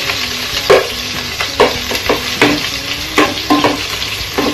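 Chopped garlic and onion sizzling in hot oil in a pot, stirred with a metal spoon that scrapes and knocks against the pot about once a second.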